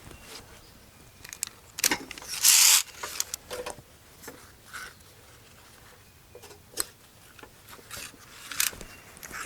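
Wooden slabs being dragged and laid onto a work bench: scattered knocks and clunks, with one loud scrape about two and a half seconds in.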